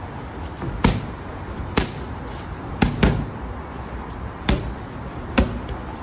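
Boxing gloves punching focus mitts: six sharp smacks at an uneven pace, two of them in a quick one-two about three seconds in.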